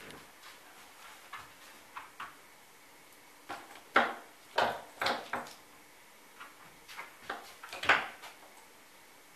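Knocks and clatters from a hybrid peregrine–saker falcon at play with a mirror on a dresser, its beak and feet striking the mirror and the dresser top. A quick run of about four knocks comes around four to five seconds in, and the loudest clatter comes near eight seconds as it flaps its wings.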